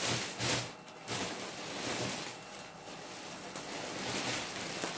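Plastic packaging around skeins of yarn rustling and crinkling as it is handled, with a few louder crinkles near the start.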